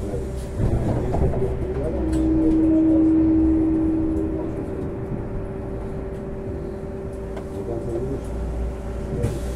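Hum of a trolleybus's electrical equipment heard from inside while it stands still, with a low rumble of passing road traffic. A stronger steady tone joins about two seconds in and lasts a couple of seconds, as the overall sound swells with a passing vehicle.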